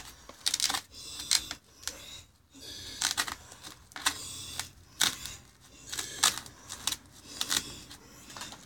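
A series of irregular sharp clicks and clacks, some fifteen spread through, now singly and now in quick pairs.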